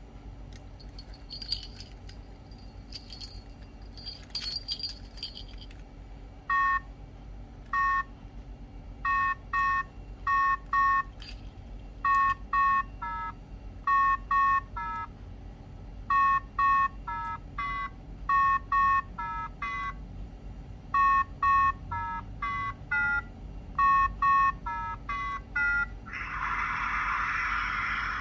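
A cat paw electronic memory game keychain. Its metal keyring and little bell jingle for the first few seconds. Then come runs of short electronic beeps at a few different pitches as its lit paw-pad buttons are pressed, and near the end a louder, harsher buzz lasting about two seconds.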